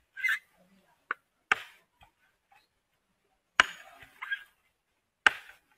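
Machete blade striking a mature coconut, about seven sharp separate knocks at irregular intervals, the loudest about three and a half seconds in and near the end.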